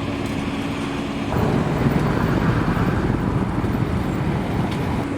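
Road traffic noise: a steady engine hum, then from about a second in a louder rush of passing vehicles, which fades back to the hum near the end.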